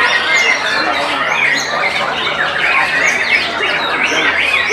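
White-rumped shama and other caged songbirds singing at once: a dense, unbroken chorus of overlapping whistles, chirps and squawky notes.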